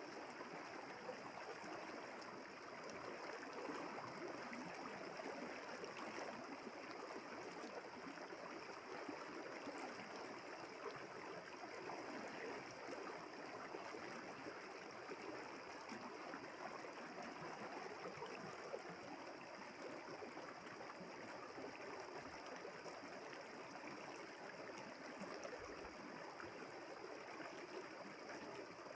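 River water flowing steadily, an even, unbroken rush with no pauses.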